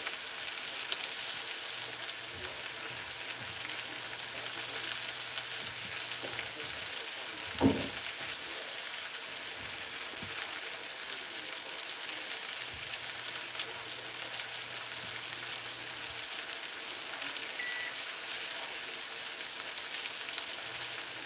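Cabbage frying in a skillet of olive oil and butter, a steady sizzle. A single short low thump about eight seconds in.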